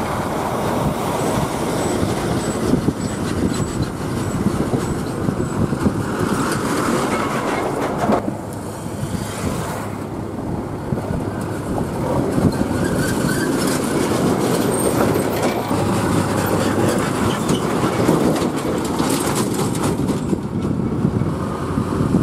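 Heavy loaded diesel lorries driving past: a steady, dense rumble of engines and tyres on the road, with a short lull about eight seconds in.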